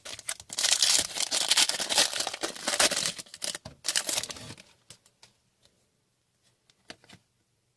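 Crinkling and tearing of a foil trading-card pack wrapper for about four and a half seconds, then a few faint ticks of cards being handled.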